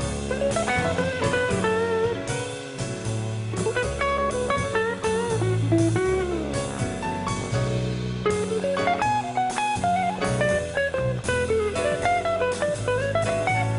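Electric guitar solo on a Telecaster-style guitar, playing bending single-note lines over a jazz band's bass and drums with cymbals.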